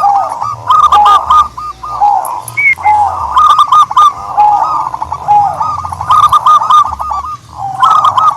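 Doves cooing: quick runs of short arched notes repeating every second or so, with a lower single coo in between.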